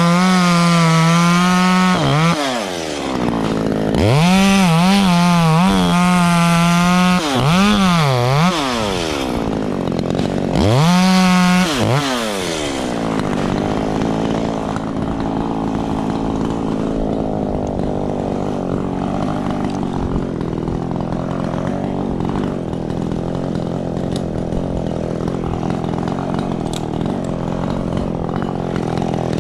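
Echo CS-3510 two-stroke chainsaw revved high in three bursts over about the first twelve seconds, its pitch dropping between them and wavering in the second burst, then settling to a steady idle for the rest.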